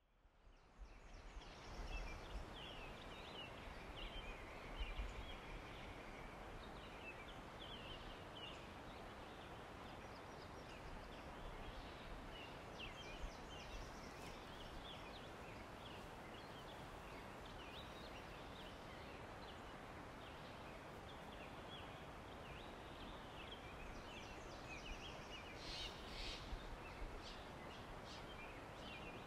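Forest ambience: small birds chirping and calling over a steady background hiss, with a louder run of calls near the end.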